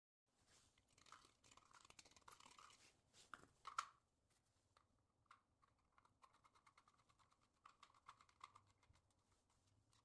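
Faint clicks and scraping of plastic parts being handled as a PVC conduit adapter is fitted into a PVC junction box, with one sharper click about four seconds in.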